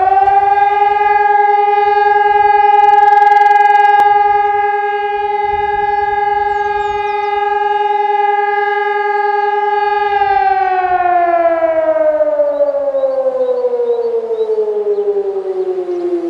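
A siren holding one loud steady tone for about ten seconds, then winding slowly down in pitch.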